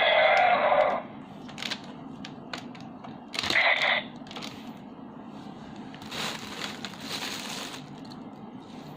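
DX Gaburevolver toy changer sounding through its small built-in speaker: an electronic sound that cuts off about a second in, then plastic clicks from the toy being handled, a second short electronic burst around three and a half seconds in, and a rasping plastic noise lasting a little under two seconds near the end.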